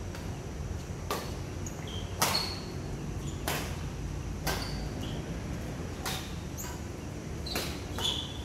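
Badminton rackets striking a shuttlecock in a rally: about six sharp hits, roughly one a second, with a few short high squeaks between them, over a steady outdoor background hum.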